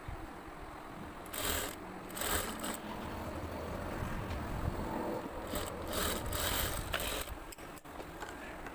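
Sewing machine stitching a shirt's shoulder seam in short runs, several bursts of stitching over a steady low motor hum.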